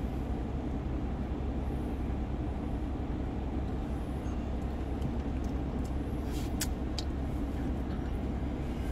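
Steady low hum of a car running at idle, heard from inside the cabin.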